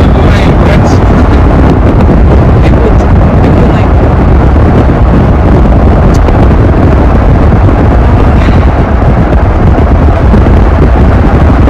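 Wind buffeting hard on the microphone over road and engine noise from a moving car, a loud, steady rumble throughout.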